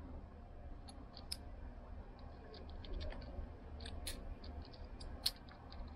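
Light, sharp clicks and ticks of small plastic and metal parts as the Sony TCK-611S cassette deck's transport mechanism is handled and its motor board is fitted back onto the chassis. The clicks are sparse at first and come more often after about three seconds, over a faint low hum.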